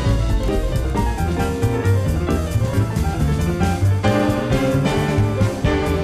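Live jazz band playing, with piano, drum kit and a bass line, from an FM radio broadcast taped onto cassette.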